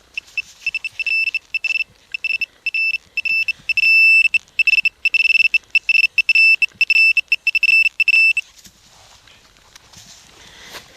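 Metal detecting pinpointer beeping at one high, unchanging pitch in uneven pulses that run together into a nearly continuous tone as it closes on a target in the dug hole. It stops about eight seconds in.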